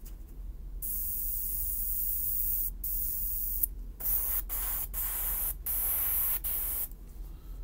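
Airbrush spraying in bursts of hissing air while it is cleaned out between colours: a thin high hiss for about two seconds, a short burst, then from about four seconds in several fuller, louder bursts with brief breaks, stopping near the end.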